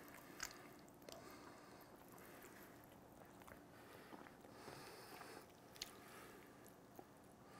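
Near silence, with faint squishing and a few small clicks as smoked brisket is pulled apart by gloved hands.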